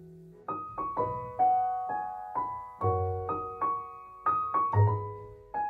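Background piano music: a melody of single struck notes, about two a second, with low bass notes now and then.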